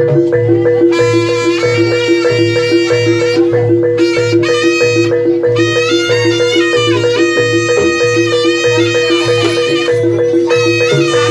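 Live Javanese jaranan ensemble music: a reedy wind melody over a steady repeating metallic percussion pulse and a low drum beat at about two beats a second.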